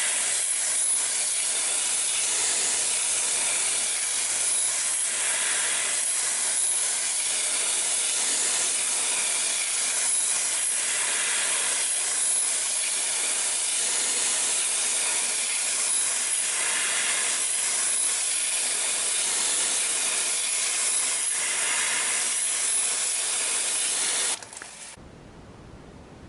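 High-pressure spray of water hissing steadily while an air conditioner is rinsed, cutting off suddenly near the end.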